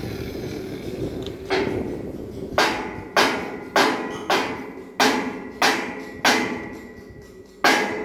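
Hammer blows on metal: about nine sharp strikes beginning about a second and a half in, roughly two a second with a longer pause near the end. A faint metallic ring hangs on after them.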